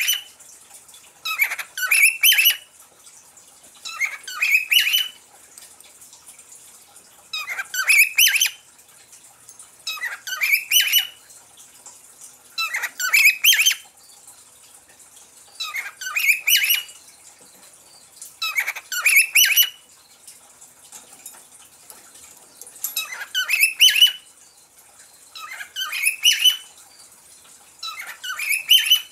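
Cockatiel chirping in short calls of about a second, repeated roughly every two to three seconds, about ten times, over a faint steady hiss.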